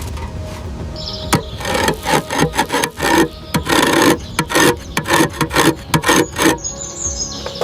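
Rasping hand scraping, a quick run of irregular strokes about three or four a second, starting about a second in and stopping shortly before the end.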